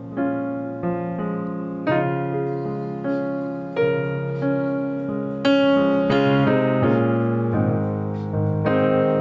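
Background piano music: a gentle melody over chords, each note struck and then fading.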